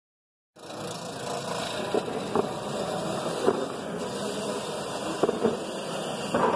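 Wood lathe running while a gouge cuts a spinning blank of green fig wood: a steady hum and hiss of the cut with sharp ticks now and then. The sound starts abruptly about half a second in.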